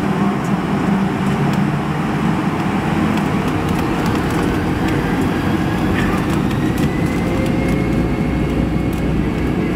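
Boeing 757-200 jet engines and cabin noise heard from inside the airliner, a steady loud rumble and rush as the plane rolls onto the runway for takeoff. A faint whine rises slowly in pitch in the second half as the engines spool up.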